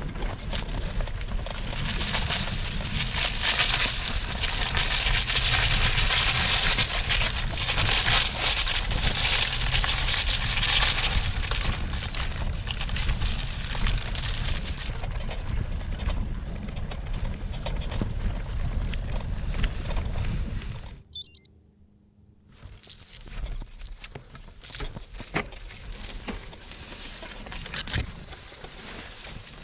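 Road bicycle jolting over rough, overgrown ground: tyres crunching and the bike rattling as weeds and brush brush against it, with a low rumble underneath. The sound cuts out abruptly for about a second and a half about two-thirds of the way through, then returns more quietly.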